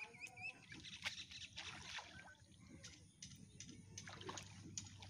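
Soft sloshing and splashing of legs wading through shallow muddy water, with scattered small clicks and splashes. A brief series of high chirps sounds right at the start.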